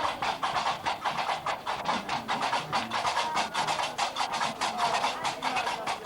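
Gnawa music: the fast, steady metallic clatter of qraqeb (iron castanets) keeping the rhythm, with low plucked notes underneath.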